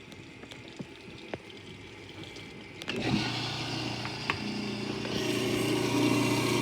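InSinkErator garbage disposal switched on about halfway through, its motor humming steadily as it churns soapy water, with the churning growing louder. Before it starts there are only a few faint clicks and drips.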